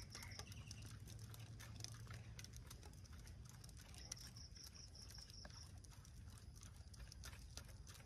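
Near silence: faint outdoor ambience with scattered soft ticks and a faint high pulsing chirp, heard briefly at the start and again about four seconds in.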